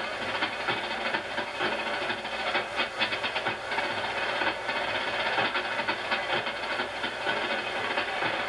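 Steady hissing noise with a fast, even clatter running through it, and no music.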